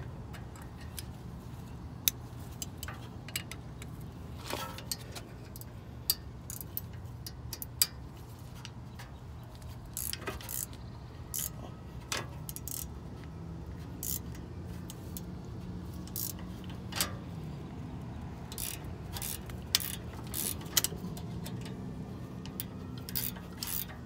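Irregular metallic clicks and clinks of a wrench and pliers on the 13 mm bolt of a rear brake caliper. The nut is being held with the pliers so it doesn't turn with the bolt while the bolt is worked loose.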